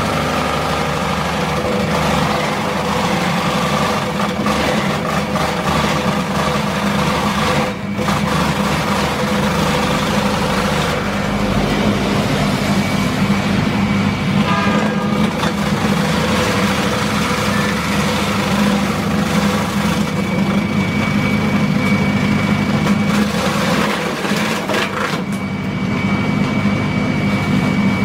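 Electric banana-trunk slicer running steadily, its motor humming while the spinning blades chop a banana trunk into thin slices that spray out of the machine.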